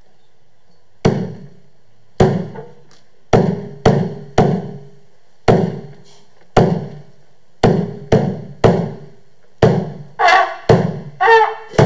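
A drum struck in a slow repeating pattern, two single strokes and then three quicker ones, each stroke ringing out and dying away, starting about a second in. A brief higher-pitched tone joins the drum near the end.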